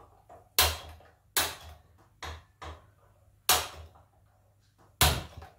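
Hand-held spark gas lighter clicking at a gas stove burner to light it: about six sharp clicks at irregular spacing, four of them loud.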